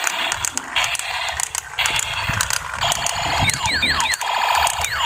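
Battery-powered toy train running, its motor and plastic gears whirring and clicking in a repeating rasp about once a second. Short falling whistle-like tones join in a few seconds in.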